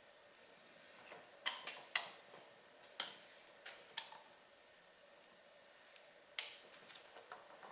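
Metal hand tools clinking while an oil filter wrench on a socket extension is used to take off a motorcycle's oil filter: a few separate sharp clinks and taps, some with a brief ring, the loudest about two seconds in and another past six seconds.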